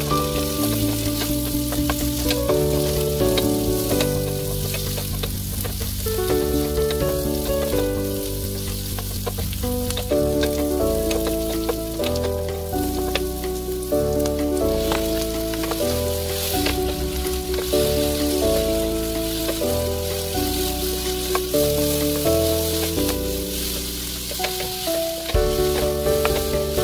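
Sliced vegetables sizzling in a hot frying pan as they are stir-fried with a wooden spatula, with light scraping and tossing ticks. Background music of held notes that change about every second plays throughout.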